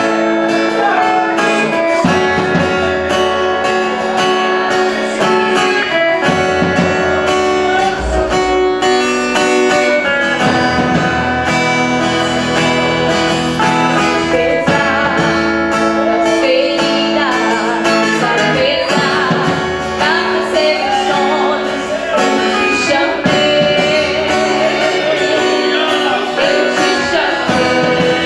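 Live worship music: strummed acoustic guitar over long held chords, with voices singing.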